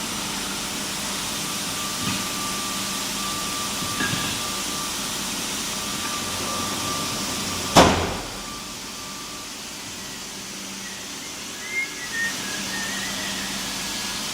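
CNC knife profiling and sharpening machine running: a steady hum with a hiss, with a thin steady whine that comes and goes over the first part. About eight seconds in there is one sharp loud knock, after which the running sound is quieter.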